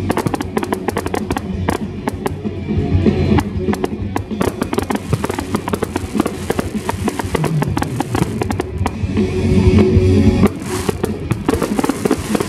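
Fireworks display: aerial shells bursting in quick bangs and crackling, over music.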